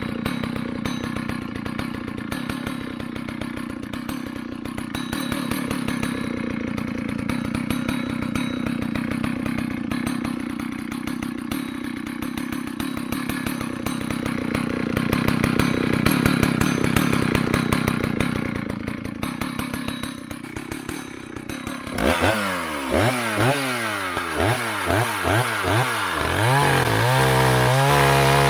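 Vintage two-stroke chainsaw running steadily at low speed, then revved up and down several times about three-quarters of the way in, and held at high revs near the end.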